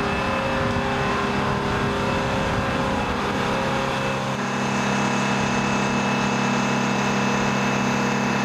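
Steady drone of aircraft gas-turbine machinery running on the flight line, holding several fixed tones; the mix of tones changes about four seconds in.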